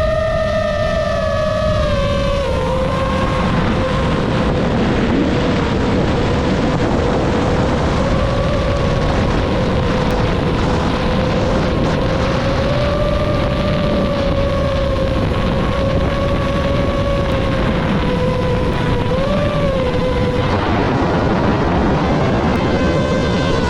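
FPV drone's motors whining, the pitch falling over the first couple of seconds and then wavering up and down with throttle, over a steady loud rushing noise.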